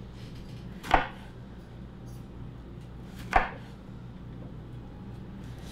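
Kitchen knife cutting a red bell pepper on a wooden cutting board: three single knocks of the blade hitting the board, a couple of seconds apart, over a low steady hum.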